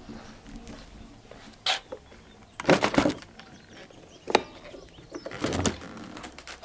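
Clicks and knocks from a white vinyl privacy gate being handled and pushed open: a latch clack, then knocks, in several short clusters about a second apart.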